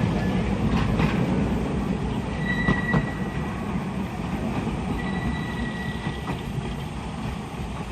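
Tourist train rolling along its track, a steady low rumble with a few clacks from the wheels on the rails. A thin wheel squeal rings out twice, about two and a half seconds in and again around five seconds.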